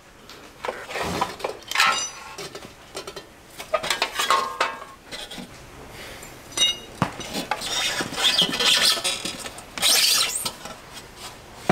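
Metal motorcycle parts clinking and knocking irregularly as the rear wheel is worked free of the swingarm, with scraping and rustling between the knocks and a sharp knock at the very end.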